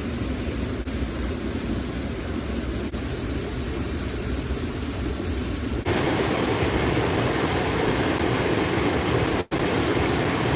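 Steady rushing of stream water, a constant hiss-like noise. About six seconds in it abruptly gets louder and fuller, and near the end it drops out for an instant.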